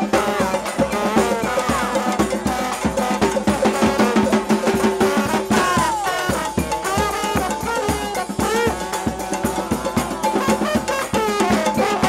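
New Orleans brass band playing up-tempo second-line music: a bass drum and snare beat under trombones, trumpets and sousaphone. Falling horn smears come right at the start and again about halfway through.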